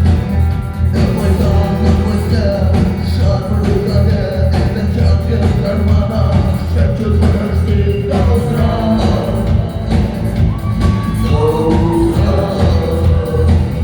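Rock band playing a song with sung vocals over a steady drum and bass beat.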